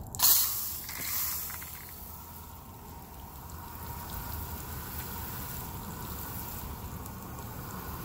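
Garden hose with a pistol-grip spray nozzle on its shower setting, opening with a sudden loud burst of hiss just after the start, then a steady hiss of water spraying onto grass and soil.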